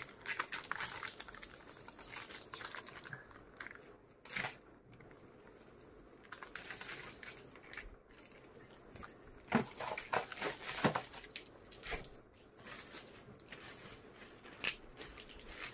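Plastic packaging rustling and crinkling as it is handled, with scattered light taps and clicks; a louder spell of rustling comes about ten seconds in.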